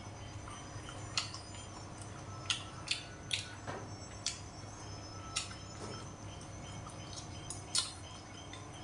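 Scattered sharp clicks and smacks of a person eating with chopsticks and a spoon, about seven over several seconds, over a steady low hum.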